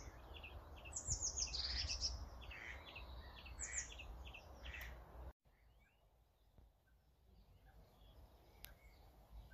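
Songbirds singing, with quick runs of high notes, over wind rumbling on the microphone. About five seconds in, the sound cuts out for a moment and comes back much quieter, with only faint bird calls.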